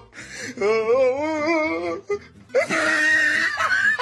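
A drawn-out wail with a wobbling pitch, then after a short break a second, higher and harsher wail.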